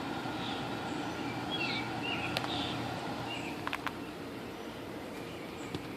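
Comfortmaker package air conditioner running with a steady hum after being jumped on from the 24-volt thermostat wiring, with birds chirping over it. A few sharp clicks come near the middle.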